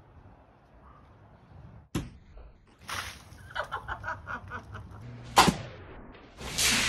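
A thrown balloon bursts with a sharp pop about two seconds in, followed by shrieking and laughter. A second, louder sharp smack comes about five and a half seconds in.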